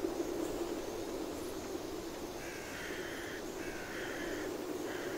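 Steady drone of a car's engine and road noise heard from inside the cabin. A few harsh rasping calls come through from outside, about halfway through and again near the end.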